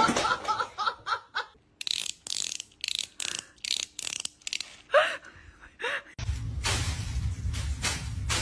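A person laughing in quick breathy bursts, about three a second, with a couple of short higher cries. A low steady hum joins for the last couple of seconds.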